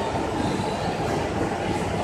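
Factory machinery running: a steady mechanical rumble.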